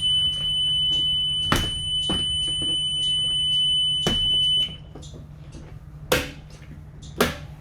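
School bus roof emergency exit alarm buzzing as one steady high-pitched tone, the sign that the hatch is open, which cuts off suddenly about four and a half seconds in. Sharp knocks and clunks come through it and after it.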